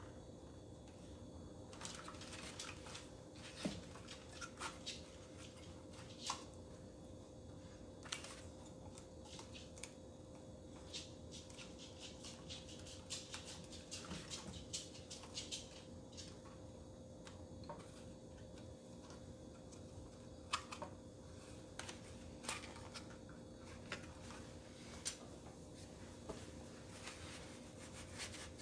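Faint scattered clicks, taps and rustles of a plastic oven clock control board and its adhesive membrane overlay being handled and pressed into place, over a faint steady hum.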